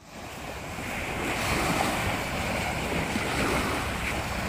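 Wind buffeting the microphone over small waves washing onto a sandy beach, fading in over the first second and then steady.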